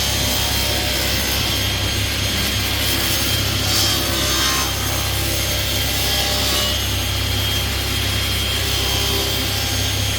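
Table saw running steadily while a board's edge is fed past the blade in a jointer jig, the blade trimming a couple of millimetres off the edge; a constant motor hum and whine under the cutting noise, which swells a little a few seconds in.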